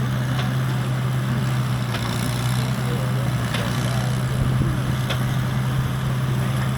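Early Arthur Young hay baler running, a steady low mechanical drone with a sharp click about every second and a half.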